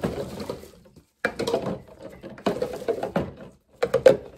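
Plastic containers being pushed by hand into a bin of soapy water: splashing and sloshing, with hollow knocks of plastic against plastic, in several short bursts.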